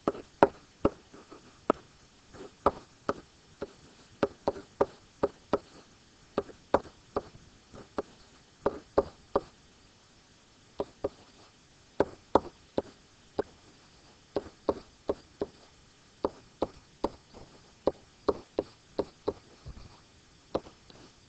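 Marker pen tapping and knocking on an interactive whiteboard surface while letters are written: sharp, separate taps at an uneven pace, a few a second, with a short pause near the middle.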